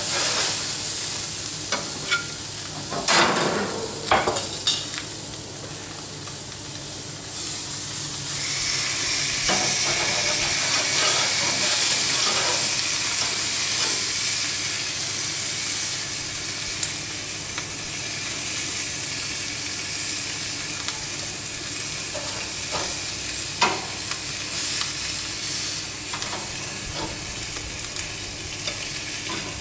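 Swordfish steaks sizzling on a hot gas barbecue grill: a steady hiss that swells for several seconds around the middle, with scattered clicks and scrapes of a metal spatula on the grill grate as the fish is turned.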